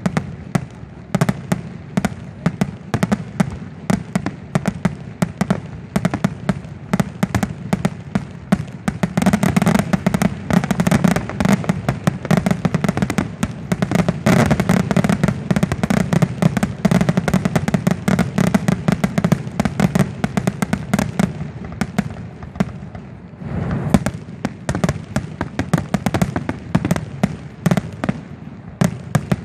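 Fireworks finale: a dense, rapid barrage of bangs and crackles from aerial shells and ground fountains. It is heaviest through the middle, eases briefly near the end, then comes back in another flurry.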